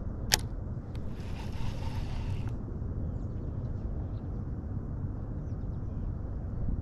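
Steady low rumble of wind and water around a small boat, with one sharp click about a third of a second in and a soft hiss lasting about a second and a half soon after.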